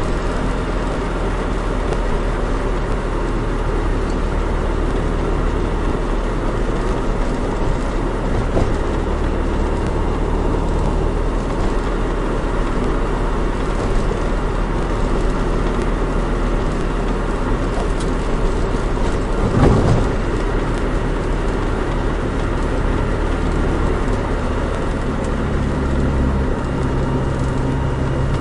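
Nissan Micra 1.3 being driven: steady engine and road noise, with a single short knock about twenty seconds in and the engine note changing near the end.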